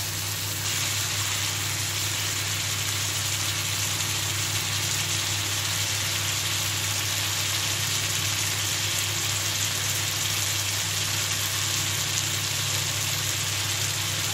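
Tomato masala with kalonji and bay leaves sizzling steadily in oil in a pan as it fries, with a steady low hum underneath.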